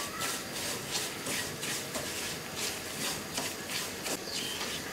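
Spatula scraping and stirring semolina around a nonstick frying pan, a run of short rubbing strokes about two or three a second. The semolina is being dry-roasted in ghee and oil, stirred without pause so the bottom doesn't brown too fast.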